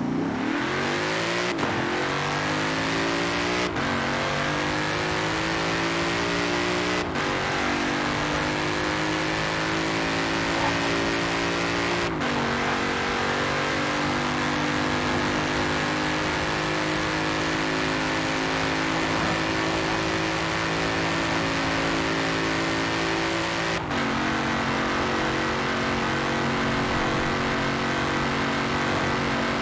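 Ford Mustang engine accelerating hard through the gears. It shifts up five times, each gear lasting longer than the last, and its pitch climbs steadily in each gear before dropping at the shift. The road and wind rush stays steady throughout.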